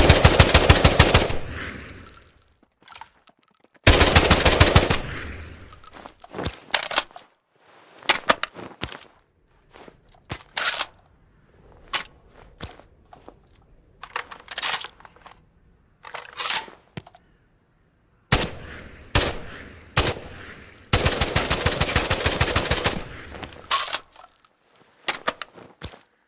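Bullpup assault rifle firing: long bursts of rapid automatic fire at the start, about four seconds in and again near the end, with single shots and short bursts between, each dying away in an echoing tail.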